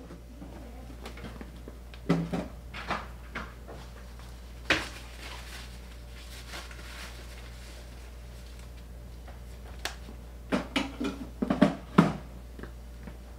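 Clunks and clatter of things being handled and set down indoors: a few knocks about two seconds in, a single sharp knock near five seconds, and a quick flurry of clunks near the end, over a steady low hum.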